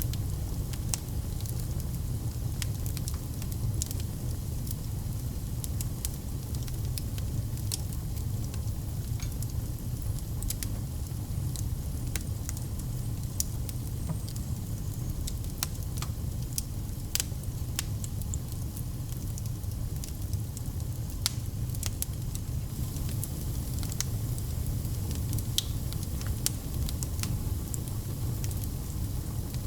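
Fire burning in a fireplace, crackling with many irregular sharp pops and snaps over a steady low rumble.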